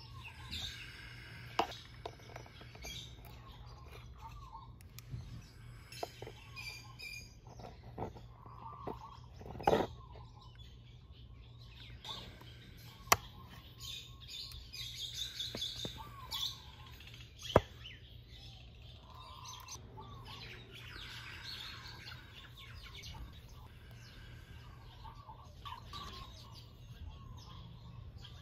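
Small birds chirping on and off, with a few sharp clicks and knocks as needle-nose pliers work a metal hose clamp off the plastic air filter box's drain tube.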